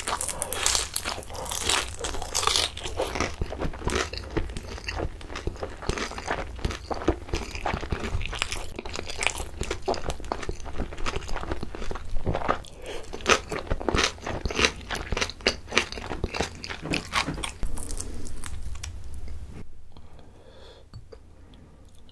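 Close-miked biting and chewing of crispy pan-fried dumplings filled with pollock roe: a crunchy bite, then a dense run of irregular crunching and wet chewing. It turns much quieter about 20 s in.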